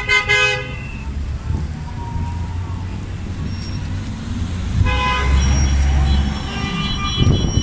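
Car horns honking in a traffic jam: a few quick toots at the start and more horns from about five seconds in, over the low rumble of queued vehicles.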